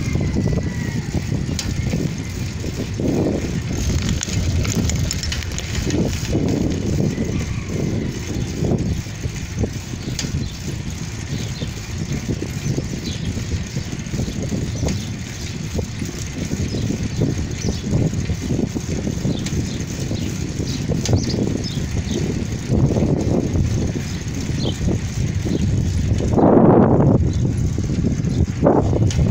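Steady wind buffeting the microphone, mixed with tyre noise rolling on asphalt while moving along a road, with a louder gust about three seconds before the end.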